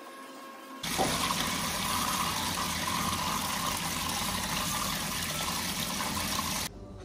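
Handheld shower sprayer rinsing feet over a pedicure foot-spa basin: a steady rush of spraying and splashing water. It starts suddenly about a second in and cuts off shortly before the end.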